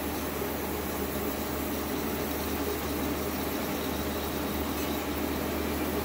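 Aerosol can of brake cleaner spraying in a steady hiss. The can is almost empty.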